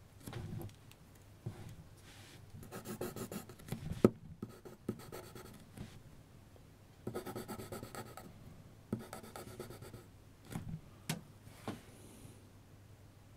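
2B mechanical graphite pencil scratching across paper in several bursts of quick zigzag hatching strokes. A sharp tap about four seconds in is the loudest sound.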